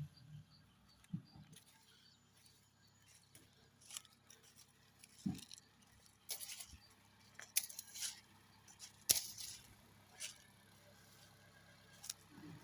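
Irregular rustling and crackling of dry corn leaves and husks, in short separate bursts, with a few soft low thumps in between.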